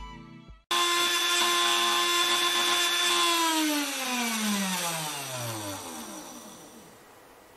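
3018 Pro CNC router's spindle motor whining steadily at full speed, then switched off about three seconds in and spinning down, its pitch sliding lower as it fades away.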